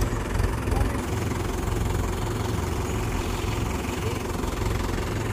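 Mahindra tractor diesel engine idling steadily with a low, even throb.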